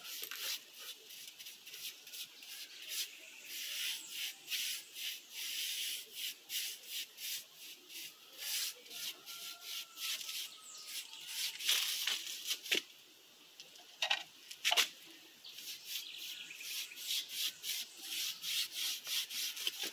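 A paintbrush scrubbing varnish onto a textured mortar faux-wood surface, in quick, repeated scratchy back-and-forth strokes. The strokes pause briefly about two-thirds of the way through, and a couple of sharper taps follow.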